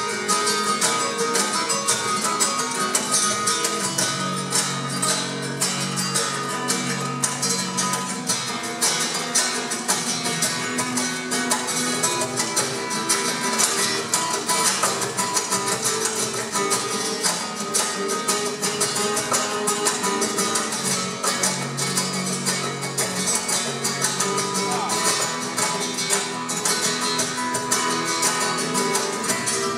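Two nylon-string guitars playing a flamenco-style duet live, a steady stream of rapid plucked notes over sustained lower notes.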